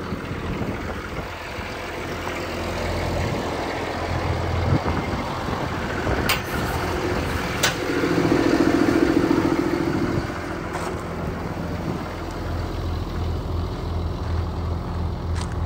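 Cummins diesel engine of a Ford F-750 bucket truck running steadily, with wind on the microphone. Two sharp clicks come a little past the middle, followed by a louder hum for about two seconds.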